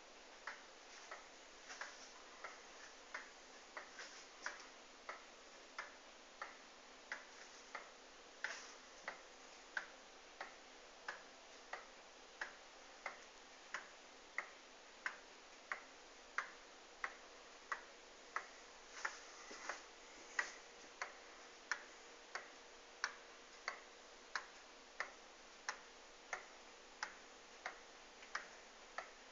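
An 1895 Ansonia Queen Anne pendulum wall clock ticking steadily, a little faster than one tick a second.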